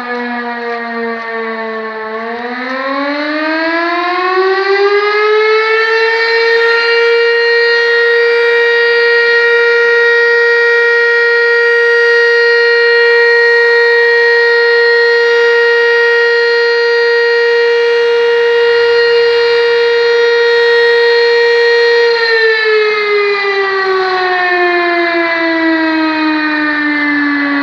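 Volunteer fire station's alarm siren sounding the call-out for the firefighters. Its tone dips slightly, then winds up over a few seconds to a steady high note that is held for about fifteen seconds, and winds back down near the end.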